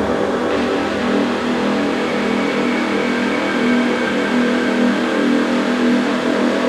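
Electric drill motor running with a loud, steady whine, distorted, its sound thickening about half a second in.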